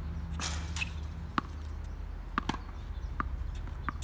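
Tennis balls being struck by rackets and bouncing on a hard court during a rally: several sharp pops about a second apart.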